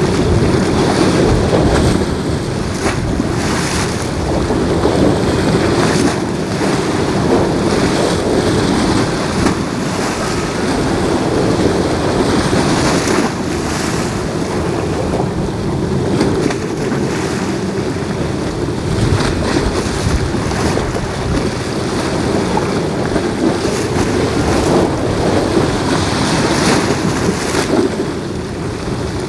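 Wind buffeting the microphone in gusts, a steady rushing noise, with harbour water washing underneath.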